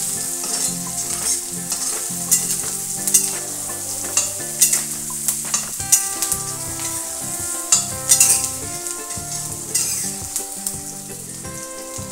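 Chopped onions sizzling in hot oil in a metal kadhai while a spatula stirs them, scraping and knocking against the pan every second or so. The onions are being fried toward a light golden brown in a tempering of oil, cumin and dried red chillies.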